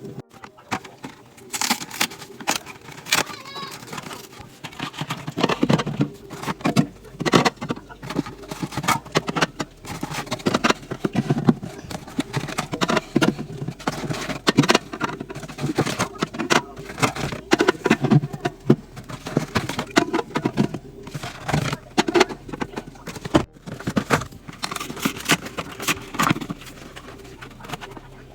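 Drink cans and bottles being handled and set into a drink fridge, sped up: a rapid, continuous run of clinks, knocks and taps.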